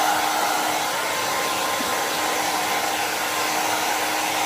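Jinri 1800 W infrared ionic hair dryer running steadily on high heat: a constant rush of blown air with a faint steady whine underneath.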